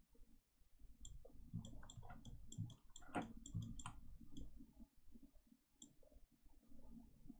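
Computer mouse buttons and scroll wheel clicking in quick runs while the 3D view is rotated and zoomed, with one more click later, faint over low room noise.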